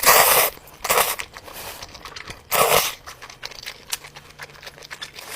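Close-miked eating sounds: crunching, crackling and tearing, with three louder noisy bursts at the start, about a second in and about two and a half seconds in, among many small clicks.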